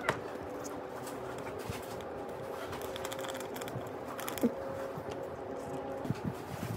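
Small plastic sachet of mulberry powder being handled and opened by hand: light crinkling, rustling and small clicks over a steady background hum, with one sharper click a little after four seconds in.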